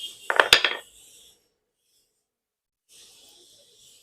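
Plastic casing of a refrigerator overload protector being cracked open: a short burst of sharp cracks and clatter about half a second in, then faint scraping near the end.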